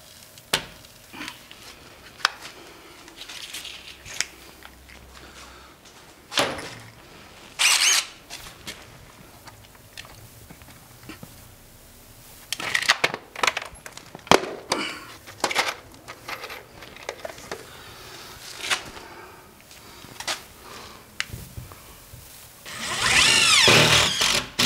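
DeWalt 20V Max cordless screw gun driving screws through cement board into wall studs. Several short bursts of the motor spinning up and stopping, the longest about a second and a half near the end, with scattered clicks and knocks of handling between them.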